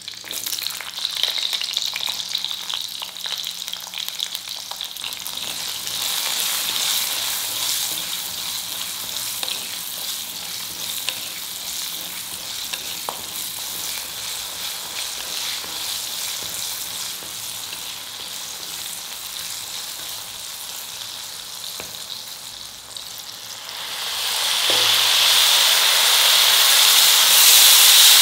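Garlic cloves, shallots and green chillies sizzling in hot oil in a stone kadai, with a steady crackle of small pops. About twenty-four seconds in, the sizzle swells into a louder steaming hiss as mint leaves go into the hot oil.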